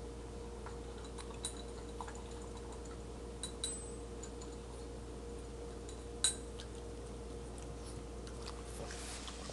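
A French bulldog eating from a metal food bowl: the bowl gives a few sharp, ringing clinks, the loudest about six seconds in.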